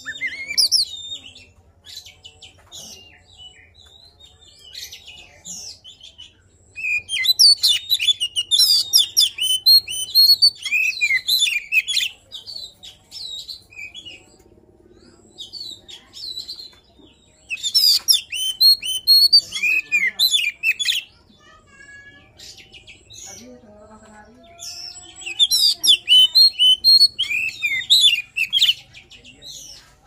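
Oriental magpie-robin (kacer poci) in full song. It sings three long bouts of rapid, varied whistled notes a few seconds apart. This is the rival-calling song used to draw other magpie-robins into singing.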